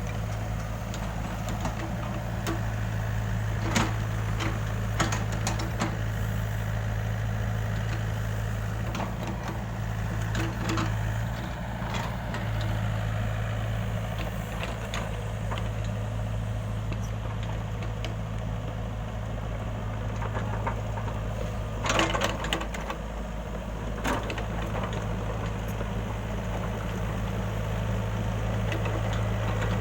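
Excavator's diesel engine running steadily at a low hum, with a few sharp metallic knocks and clanks, the loudest cluster about two-thirds of the way through.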